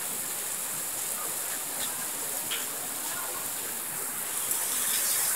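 Steady hiss of rain falling, with a few faint, distant shouts and calls scattered through it.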